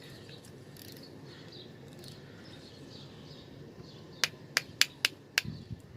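An MC4 solar connector's plastic cap nut being screwed tight: five sharp clicks come in quick succession about two-thirds of the way in, as the nut's locking catches snap into place.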